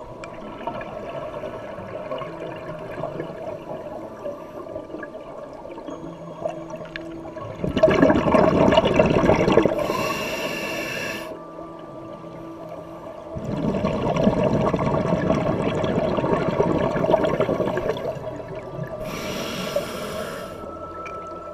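Scuba diver breathing through a regulator underwater: two long gurgling rushes of exhaled bubbles, about eight and thirteen seconds in, each followed by a short high hiss of the regulator on the inhale.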